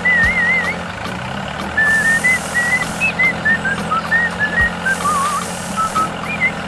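Background music carrying a whistled melody of short notes with warbling trills, over a steady low hum and a regular beat. Two low thuds fall about a third of a second in and a little past four and a half seconds.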